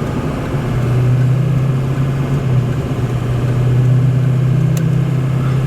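Semi truck's diesel engine droning steadily while driving, heard from inside the cab, with a single short click near the end.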